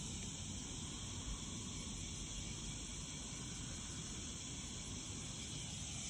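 Steady, high-pitched insect chorus, with a low rumble underneath.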